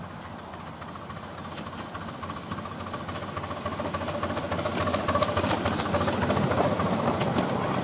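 Miniature steam locomotive running, its rapid exhaust beats and steam hiss growing steadily louder, with a steady whine underneath.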